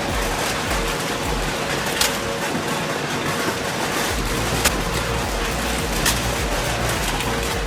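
Industrial shredding machine running, a steady grinding noise with a hum, and a few sharp cracks about two, four and a half and six seconds in. A deeper rumble comes in about four seconds in.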